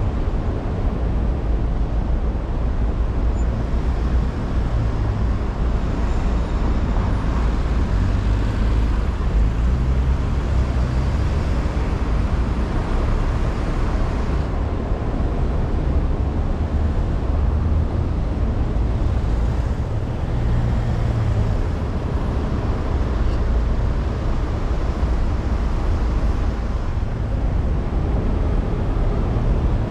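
A car driving along a busy city road: a steady low rumble of engine, tyre and traffic noise.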